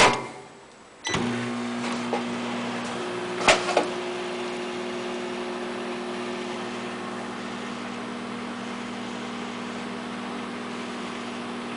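A microwave oven starting up about a second in after a sharp click, then running with a steady low hum while heating a cup of water; a couple of short clicks come around three and a half seconds in.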